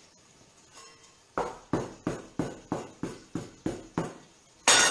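Knife cutting a rope of potato gnocchi dough against a wooden board: about nine even knocks, roughly three a second, then a louder scrape near the end.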